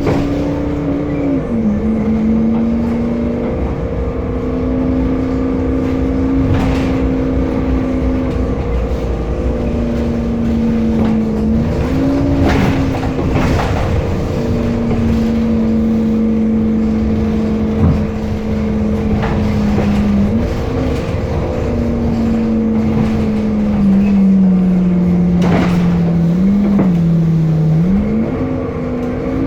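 Temsa Avenue LF city bus with a DAF diesel engine and ZF Ecolife six-speed automatic gearbox, running with a steady droning whine. The whine's pitch holds, then dips and climbs back several times as the bus changes speed, with a few short knocks and rattles over the drone.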